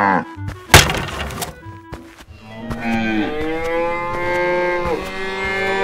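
Cartoon cows mooing. One moo ends just after the start, and a short rushing noise comes about a second in. From about three seconds in, several long moos overlap.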